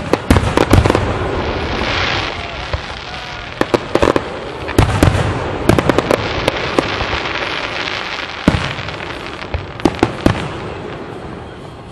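Aerial fireworks show: shells bursting in quick succession with many sharp bangs, and a hissing crackle filling the gaps between them. The bangs thin out and the sound dies down near the end.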